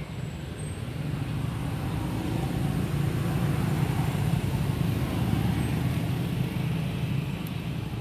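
Low rumble of a passing motor vehicle, swelling over a few seconds and easing off slightly near the end.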